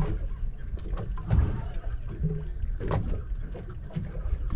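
Open-water ambience on a small fishing boat at sea: a steady low rumble of wind and water against the hull, with a few irregular knocks and splashes.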